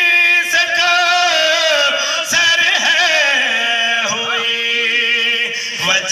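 A man chanting a melodic religious recitation, a qasida, into a microphone in long held notes. About three seconds in his voice slides down and settles on a lower held note.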